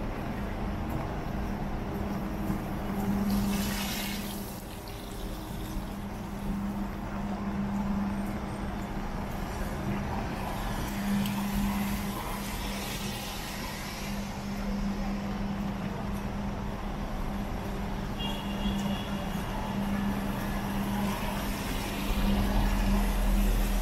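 City street traffic on rain-wet roads: cars and trucks passing with a steady engine hum and tyre noise. There is a sharp hiss about four seconds in, and a short high beep later on.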